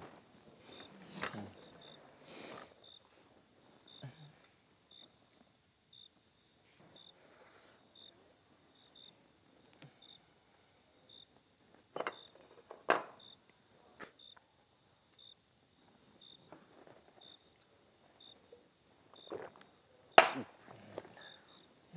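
Cricket chirping, about two chirps a second over a steady high tone. A few sharp knocks cut through it, the loudest about twenty seconds in.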